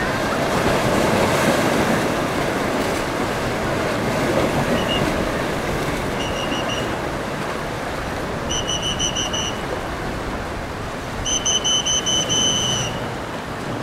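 Steady rush of surf and boat wash. Over it, in the second half, come several runs of rapid, high-pitched chirps, the longest near the end.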